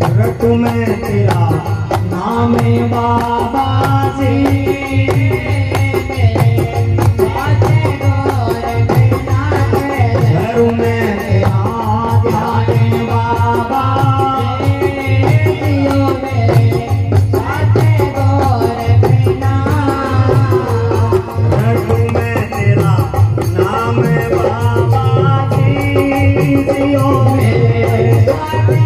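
Live Rajasthani devotional folk music: several pairs of large metal hand cymbals clashing in a fast, steady rhythm over an amplified melody and a pulsing low beat.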